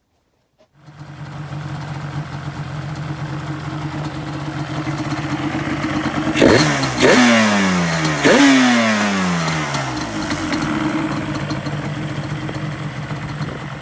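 2007 Yamaha Banshee's 350 cc twin-cylinder two-stroke engine on its first startup after a full rebuild: it fires about a second in and settles into a steady idle. Near the middle the throttle is blipped twice, and each time the revs jump sharply and fall slowly back to idle.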